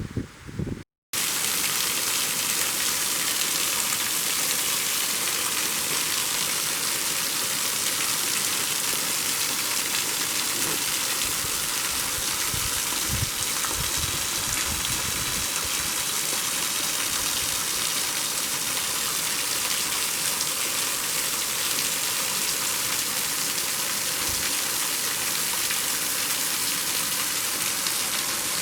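Waterfall: a steady, unbroken rush of falling water that starts about a second in.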